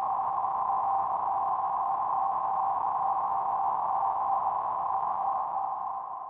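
Steady electronic test tone in the middle of the pitch range, held on one note with a faint hiss around it, fading down near the end.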